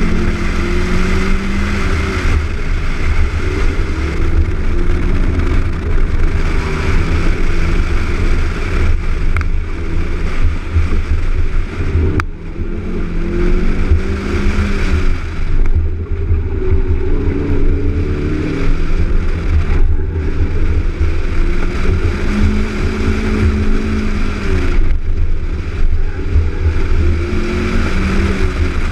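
Honda CRX Si's four-cylinder engine driven hard, its pitch climbing under acceleration and falling back on lifts and shifts again and again. A sharp click with a brief drop in level comes about twelve seconds in.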